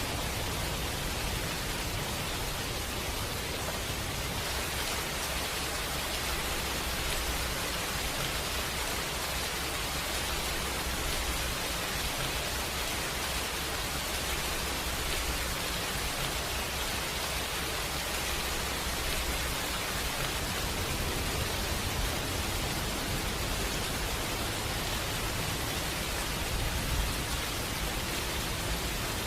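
Steady rain falling, an even hiss with a low rumble underneath and no distinct drops standing out.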